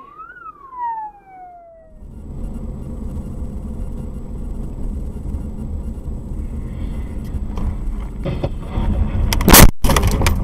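A siren wail rises and falls and fades out about two seconds in. Then comes the steady road and engine noise of a car driving, heard from inside, broken near the end by a loud crash.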